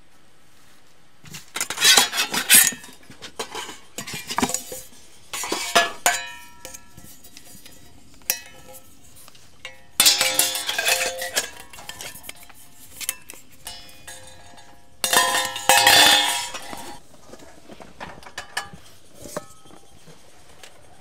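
Metal camping gear being handled, clattering and clinking in several bursts with short ringing tones; the loudest bursts come about two, ten and fifteen seconds in.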